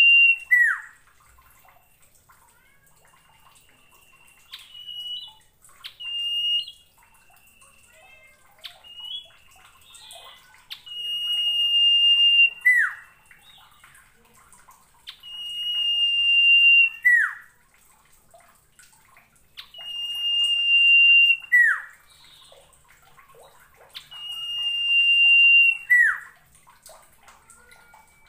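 Common iora singing: long, steady high whistles that swell in loudness and end in a quick falling note, repeated about every four seconds, with a few short notes in between.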